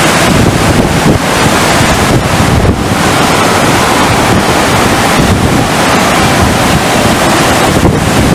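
FlowRider surf simulator's pumped sheet of water rushing steadily and loudly over its padded surface, with wind buffeting the microphone.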